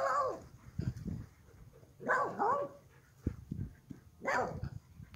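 Dog barking three times, about two seconds apart, each bark a short call that falls in pitch.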